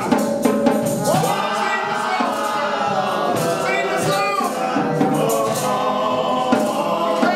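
Gospel choir and congregation singing with instrumental backing.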